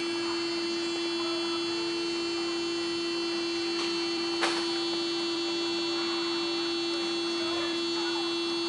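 A steady electrical hum with a thin high whine over it, unchanging throughout, and one brief click about four and a half seconds in.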